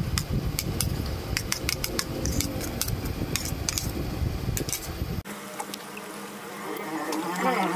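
A metal spoon clicks and scrapes on a ceramic plate as chopped onions are pushed into hot oil in a pan, over a steady low rumble. About five seconds in, the sound cuts to onions frying in the oil, and a buzzing insect is heard near the end.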